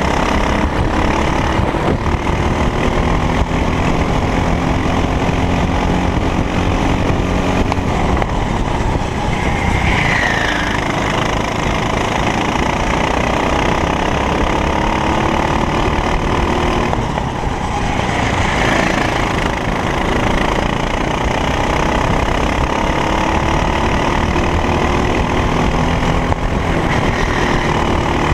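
Racing kart engine at full race pace, its pitch climbing steadily as it accelerates and dropping back when it slows for corners, several times over, with a constant rush of wind noise. A brief high squeal sounds about ten seconds in and again near eighteen seconds.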